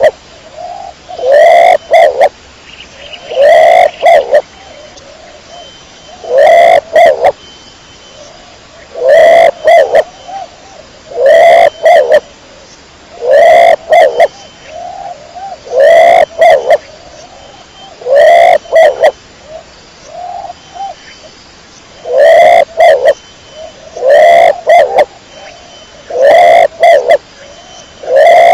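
Domestic pigeon cooing: loud, repeated coos about every two to three seconds, each lasting about a second.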